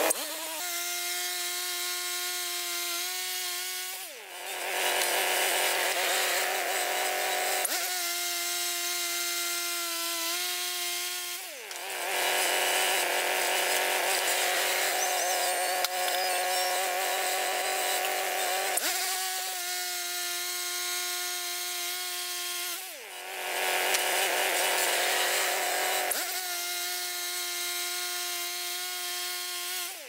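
Wood-Mizer portable band sawmill running on its gas engine: a steady engine tone alternates three times with a louder, rougher stretch as the band blade cuts through a walnut log.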